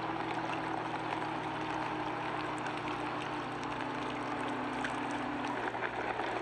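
A boat moving across choppy lake water: a steady rush of water and wind with a constant low hum underneath.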